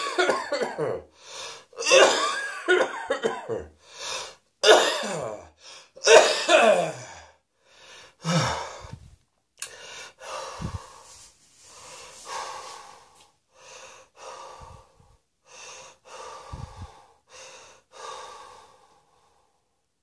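A person coughing in a long fit. Loud coughs come in clusters over roughly the first eight seconds, each with a voiced tail that falls in pitch. After that come weaker, breathy coughs about once a second until near the end.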